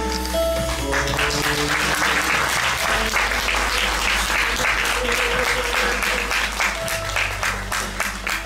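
Theatre audience applauding, the clapping swelling about a second in and staying dense, over background music with sustained notes.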